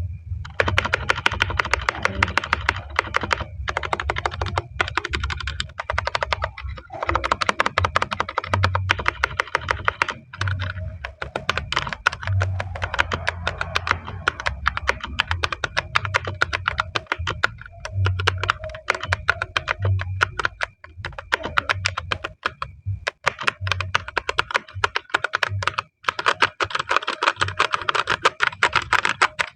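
Typing test on a Vortex VX8 Pro mechanical keyboard with Gateron Brown switches: rapid, continuous keystrokes with a few brief pauses. There is little stabilizer rattle.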